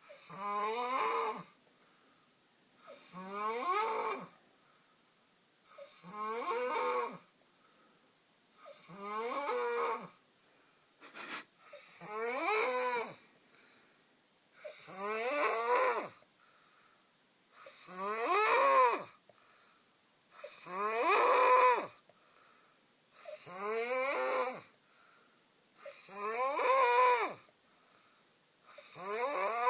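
Man snoring in his sleep, a long pitched, rasping snore on each breath, repeating about every three seconds.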